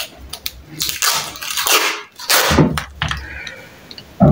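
Wide yellow sellotape being pulled off its roll in two noisy rips, the first about a second long and the second shorter.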